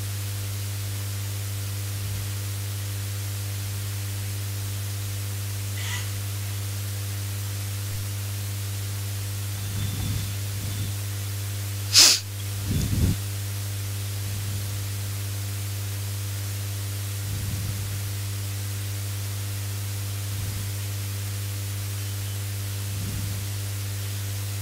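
Steady electrical mains hum and hiss in the microphone feed. A single sharp click-like noise comes about halfway through, and a brief low bump follows a second later.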